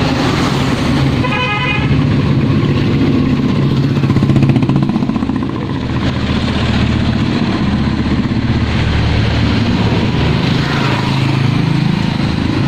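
Road vehicle engine running steadily on the move, with a short horn toot about a second and a half in.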